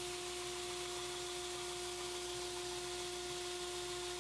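Belt grinder running steadily: an even hiss of the abrasive belt with a constant whine underneath, as G10 handle pins are ground flat against the platen.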